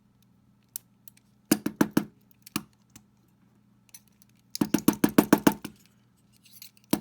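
Quick bursts of sharp metallic knocks and clicks from a Mul-T-Lock Integrator euro cylinder as it is worked to free its stuck plug. There is a short burst about a second and a half in, a longer rapid run past the middle, and another burst at the very end.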